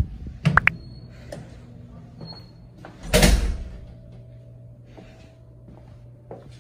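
Hotel room door opened by its metal lever handle: a knock, then sharp latch clicks within the first second, and a louder rushing thud about three seconds in. A steady low hum runs underneath.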